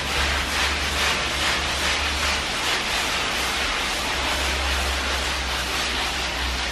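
Handheld electric power tool, most likely an angle grinder, grinding at a plastered wall: a steady gritty noise over a low motor hum.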